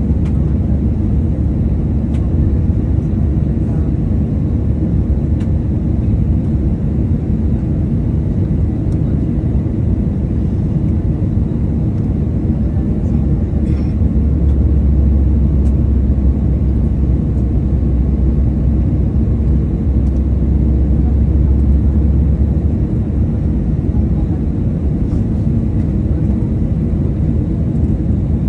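Steady low rumble of engine and airflow noise heard inside an airliner cabin on its approach to landing, its deepest part growing heavier for several seconds about halfway through.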